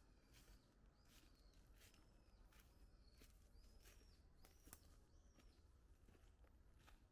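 Faint footsteps crunching through dry fallen leaves on a mountain path, an even walking pace of about one and a half steps a second, with a bird repeating short high chirps.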